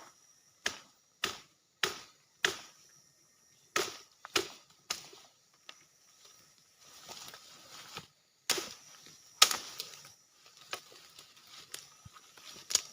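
Wood being chopped with a blade: a quick run of sharp strikes, about one every half second, then slower and scattered strikes, with a few of the loudest near the end.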